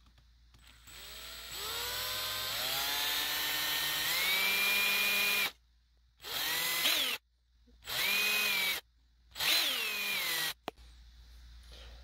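Electric drill spinning a countersink bit into the end of a bamboo skewer to cut a cone. The motor whine climbs in pitch over a few seconds and holds, then comes in three shorter runs of about a second each, each rising and falling away.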